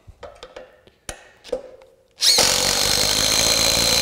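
A few faint knocks, then about two seconds in a DeWalt Atomic compact impact driver starts abruptly and runs steadily under load, hammering a lag screw down into wood.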